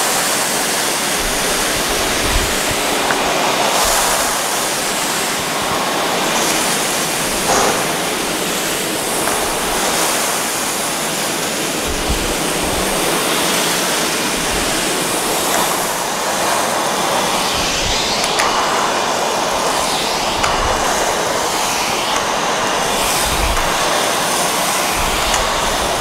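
Wieland IS-56 5.5 kW industrial vacuum cleaner running at full suction, with a steady loud rush of air as the floor nozzle and flexible hose suck up spilled material.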